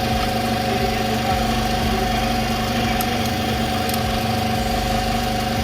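Steady engine hum at an even pitch, with two faint light ticks about three and four seconds in.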